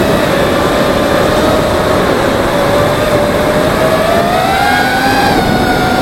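FPV racing quadcopter's motors and propellers whining steadily, picked up by the camera mounted on the drone, over heavy rushing noise from the propellers. The pitch rises a little about four to five seconds in, then settles back.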